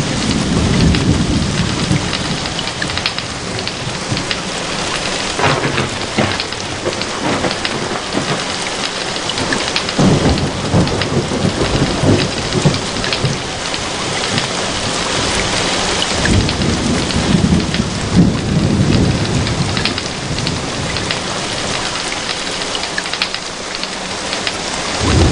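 Heavy rain pouring steadily onto leaves and wet pavement in a thunderstorm, with a low rumble of thunder swelling and fading several times: near the start, a third of the way in, and again past the middle.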